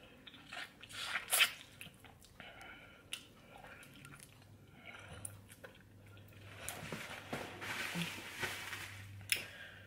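Close-miked eating sounds: a person biting and chewing stewed oxtail, wet smacking and squishing with scattered clicks. The loudest bite comes about a second and a half in, and a longer wet stretch of chewing follows near the end.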